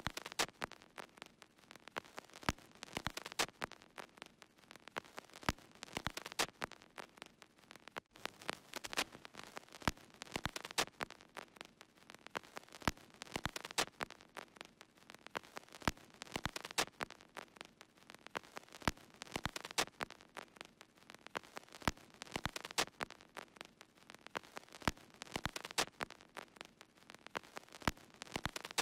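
Continuous irregular crackle of scattered sharp clicks, like an old-film or record crackle effect, with no other sound.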